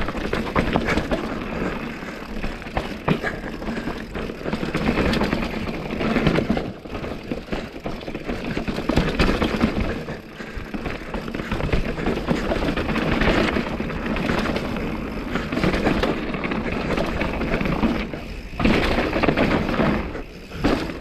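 Mountain bike riding down a rocky trail: a continuous rumble of tyres and rattling over rock, rising and falling, with a few sharper knocks.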